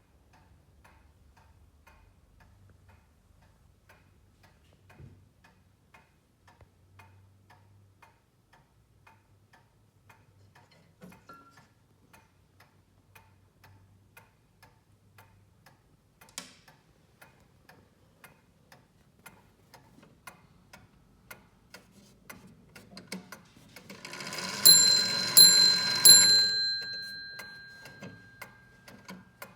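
Antique wooden mantel clock ticking steadily, then its hammer strikes the bell three times near the end, the bell ringing on and dying away.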